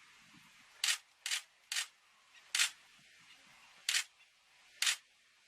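Camera shutter firing six single shots at uneven intervals, each a short sharp click.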